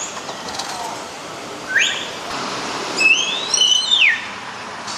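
Hill myna whistling: a quick rising whistle about two seconds in, then a run of several clear whistled notes that glide up and down about three seconds in.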